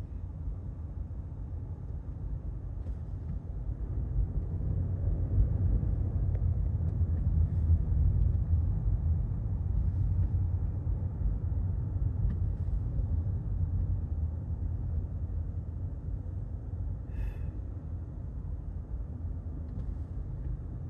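Low, steady rumble of a car moving slowly in heavy traffic, swelling a little in the first half. A brief high-pitched sound comes about seventeen seconds in.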